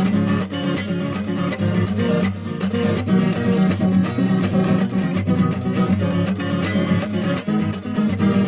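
Colombian tiple, with its strings slackened to a Venezuelan cuatro tuning, strummed in a rapid, rhythmic cuatro-style pattern. It sounds low and loose; the player calls it a horrible sound.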